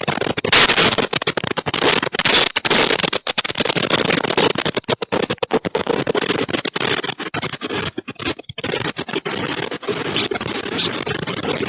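Loud, rough rattling and scraping noise of a room and its contents shaking in the magnitude 7.0 earthquake, cutting in and out many times.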